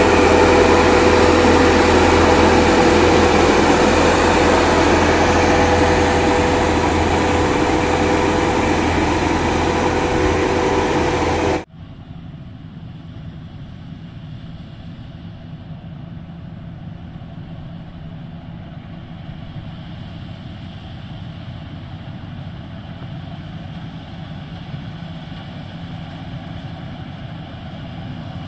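Maxxi Bimo 110 Plus combine harvester running steadily and loud, with a constant whining tone over the engine noise. About twelve seconds in, the sound cuts off abruptly to a much quieter, steady machine hum.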